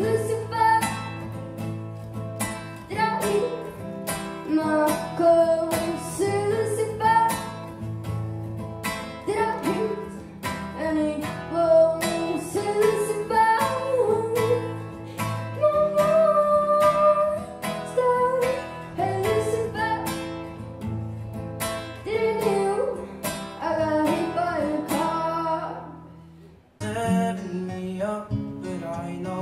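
A young woman singing with her own strummed acoustic guitar, live on stage. The song fades out about 26 seconds in, and a different guitar-and-voice piece begins near the end.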